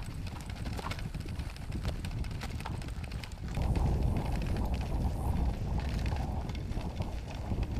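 Boots walking steadily on packed dirt, with a measuring wheel rolling alongside. A low rumble grows louder about three and a half seconds in.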